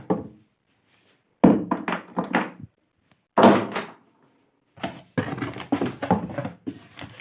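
Unboxing handling: a sudden thunk as a packed item is set down or the cardboard box is knocked, a second shorter knock, then a run of small knocks and packaging rustle near the end.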